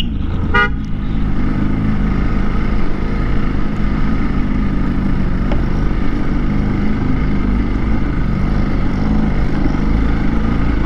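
Motorcycle engine running steadily while riding along a dirt track, with a short horn beep about half a second in.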